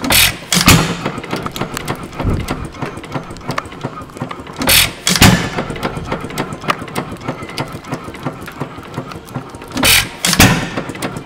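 Moody sideshaft hit-and-miss engine, fitted with a new muffler, running: two sharp firing bangs about half a second apart, repeated about every five seconds. Between firings it coasts with a fast, light clatter.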